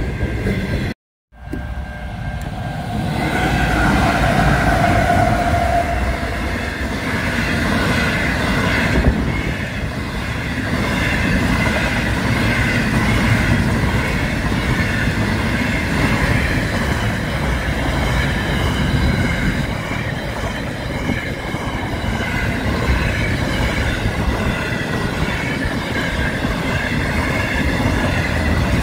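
Container freight train passing close by at speed: wagons rumbling and clattering over the rails, with steady high tones over the rumble. The sound drops out briefly about a second in, then the passing resumes.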